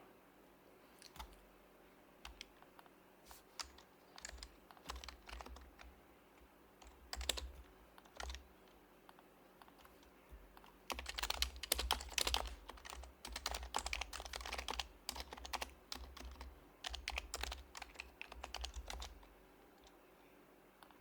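Typing on an HHKB Professional Hybrid Type-S keyboard, its silenced Topre switches giving soft, muted keystrokes. Scattered single keypresses give way about halfway through to fast bursts of continuous typing, with another run near the end.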